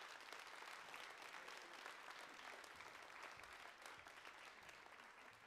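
Faint audience applause, many hands clapping at once, easing off slightly near the end.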